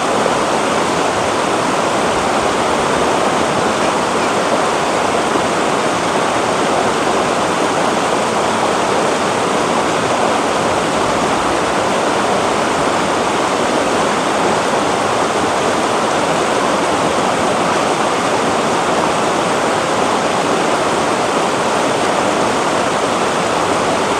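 Shallow rocky river running over boulders in small rapids: a steady, even rush of water.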